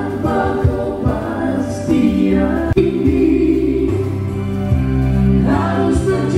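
Men singing into microphones, amplified through a PA, over band accompaniment with a steady bass line and a regular beat; more than one voice sings at once at times.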